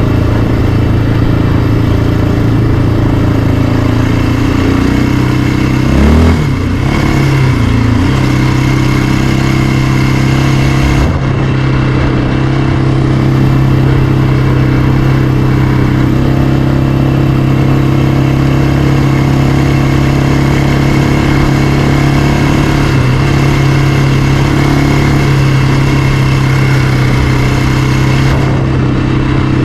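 Yamaha Raptor 700R's single-cylinder four-stroke engine running at a steady riding speed, with a brief dip and rise in engine pitch about six seconds in before it settles steady again.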